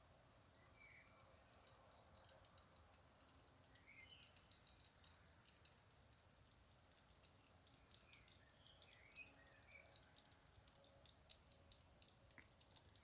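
Faint, rapid, irregular high clicking that starts about two seconds in and crackles on for about ten seconds, with a few short faint chirps among it.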